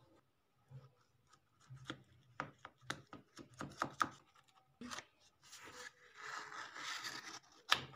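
Faint handling noises: scattered small clicks and taps, a stretch of rubbing about six seconds in, and a sharper click near the end.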